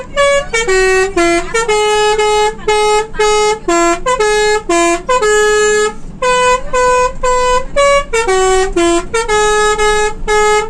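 Musical multi-tone bus horn (an Indonesian "telolet" horn) playing a tune: a quick run of short notes, about three a second, stepping up and down in pitch, with a few longer held notes in the middle.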